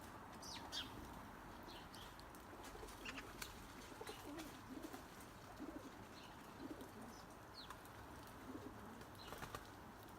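Doves cooing softly in a string of repeated low coos, with short high chirps from other small birds scattered through.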